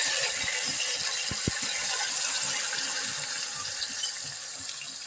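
Marinated chicken pieces sizzling in hot oil in a frying pan, just tipped in, the sizzle slowly dying down. Two short knocks about a second and a half in.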